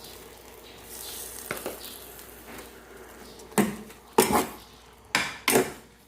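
Cooking utensil knocking against a pan about five times in the second half, as ham and hotdogs are stirred, over a faint sizzle from the pan.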